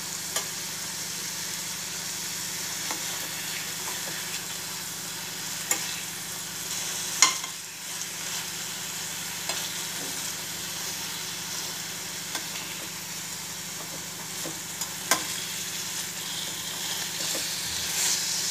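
Chicken breast slices sizzling in ghee in a stainless steel frying pan over a low flame: a steady, gentle hiss. A few sharp ticks come from the metal spatula against the pan as the pieces are turned.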